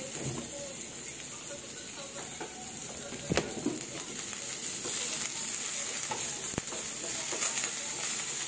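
Sliced onions and garlic sautéing in olive oil in a frying pan, sizzling steadily as a spatula stirs them. Two sharp clicks cut through, about three seconds in and again a little after six seconds.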